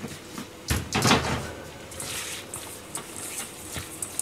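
A clunk of a stainless steel mixing bowl on a steel counter about a second in, then a soft rustle with light clicks as chicken gizzards are tossed by hand in flour in the bowl.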